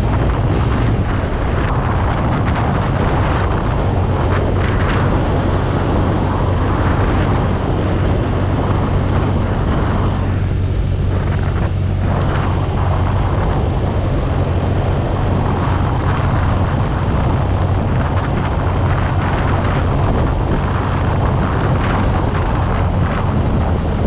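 BMW R nineT Urban G/S's air/oil-cooled boxer-twin engine running at a steady cruise while riding, nearly buried under heavy wind rush on the microphone.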